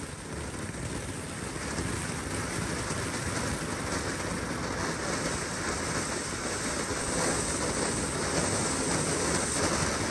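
Consumer firework fountain burning on the ground, spraying sparks with a steady hiss that grows a little louder.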